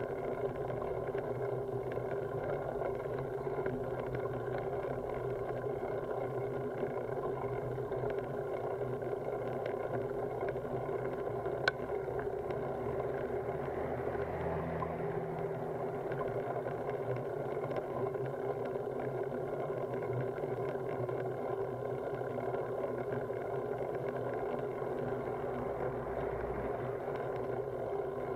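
Road bicycle rolling slowly uphill on asphalt: a steady, muffled rumble of tyres and frame carried up through the handlebar-mounted camera, with a single sharp click near the middle.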